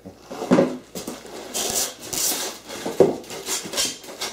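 Bubble wrap crinkling and rustling in irregular bursts, with a few light knocks, as a bubble-wrapped CNC side rail is gripped and lifted out of a cardboard shipping box.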